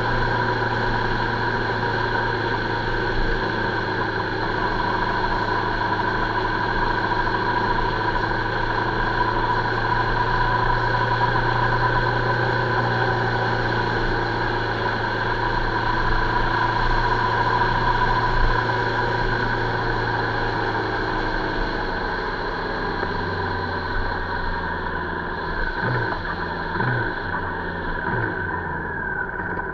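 Motorcycle engine running at a steady cruise, with wind and road noise. About two-thirds of the way through, the engine note drops as the bike slows, and there are a few short rises in the engine note near the end.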